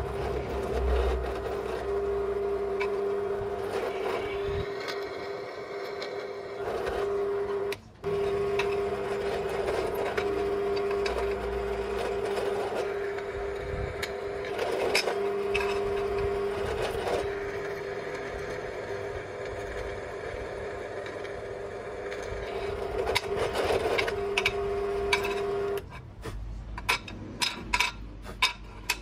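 Electric skateboard's dual 5055 280KV brushless motors running with a steady, even-pitched whine. The whine cuts out briefly about 8 s in and stops near the end, with scattered clicks and knocks along the way.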